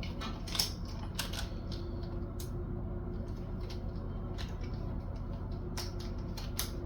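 Scattered light clicks and ticks of keys and small metal tools being handled on a bench, about half a dozen, with a faint low hum underneath.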